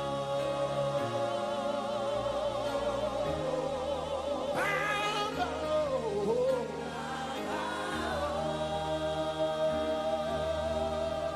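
Live gospel worship music: voices sing a long held note with vibrato over keyboard and bass chords that step from one chord to the next. About four and a half seconds in, a voice swoops up high and slides back down.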